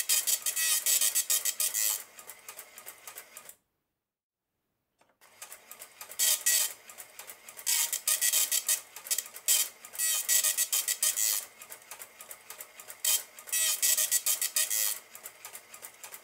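Elka 803-02 cash register's dot matrix printer printing a report: bursts of rapid, buzzing needle strikes, line after line, with quieter stretches between them. The printing stops for about a second and a half a few seconds in, then resumes.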